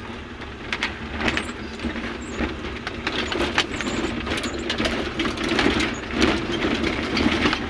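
Car heard from inside the cabin driving over a rough, rutted dirt track: a steady engine and road noise with many short knocks and rattles as the car bounces over the bumps.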